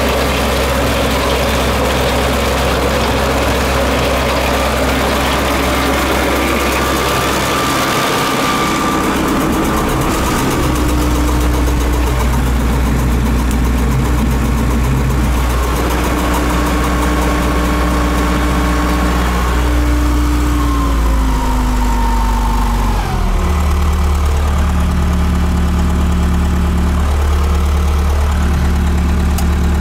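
Trackless MT5 tractor's engine running steadily, its pitch stepping up about a third of the way in and then sliding down about two-thirds of the way through as the engine slows.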